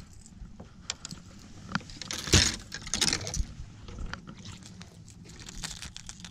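A hooked fish splashing at the surface beside the boat, with two noisy splashes a little over two and three seconds in, and small clicks and rattles of tackle around them.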